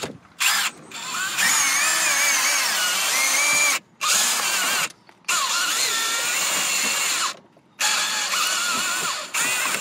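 A cordless drill with a step drill bit boring out a switch hole in a plastic dash panel. It whirs with a high, wavering squeal in about five runs of one to three seconds, stopping briefly between runs as the hole is stepped up.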